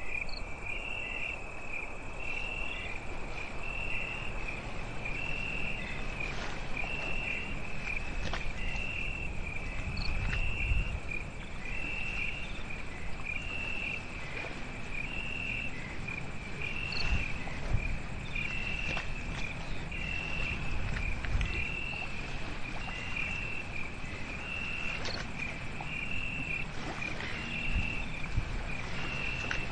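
Night-time insects, cricket-like, chirping: a short high chirp repeats about once a second over a steady high trill. A few low rumbles rise and fade beneath it.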